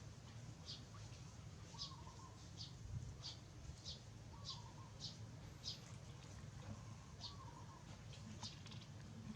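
Faint animal chirping: short high chirps about once or twice a second, with a lower, warbling call every two to three seconds.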